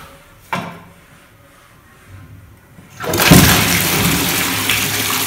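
Wall-hung toilet with a concealed in-wall cistern being flushed: about three seconds in, water starts rushing loudly into the bowl and keeps running steadily.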